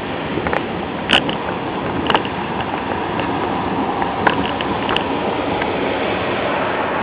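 Steady heavy rain pouring down, with a handful of sharp taps of drops landing close by, the loudest about a second in.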